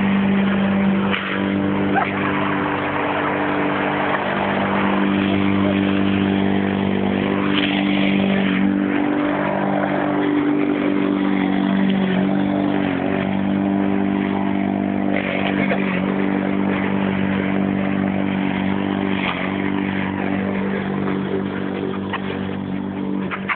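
Lawn mower engine running steadily, its pitch dipping slightly now and then.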